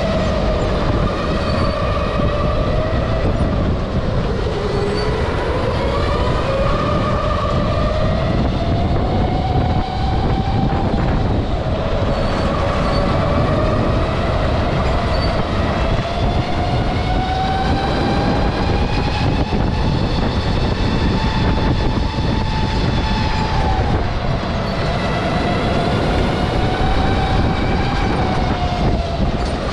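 Electric go-kart's motor whining, its pitch rising and falling with speed, over a steady rumble of tyre and chassis noise.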